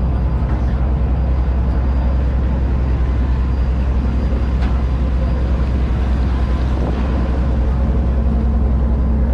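Tender boat's engine running with a steady low drone.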